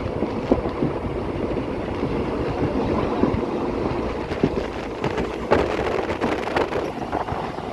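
Express passenger train running, heard from on board: a steady rumble and rattle of the coach on the rails, with wind noise and a few sharp clacks.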